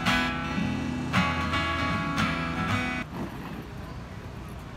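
Acoustic guitar strummed in chords, a strum about every second, which stops abruptly about three seconds in; a quieter outdoor background noise follows.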